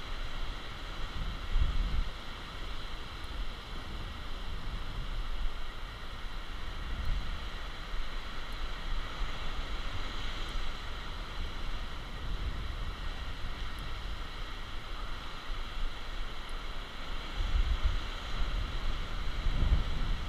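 Wind buffeting the microphone in gusts, over a steady wash of sea surf.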